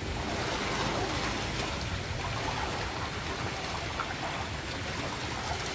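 Steady rush of running water, an even hiss with no rhythm.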